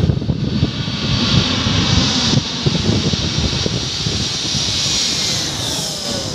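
Jet airliner flying low overhead on its descent to land, its engines a loud steady rush with a high whine that drops in pitch toward the end as it passes.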